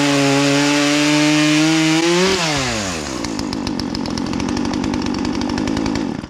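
Gas chainsaw running at full throttle, likely cutting a slice from a red oak block. About two seconds in the throttle is released and the engine winds down to a lower, rattling idle, and the sound cuts off sharply at the end.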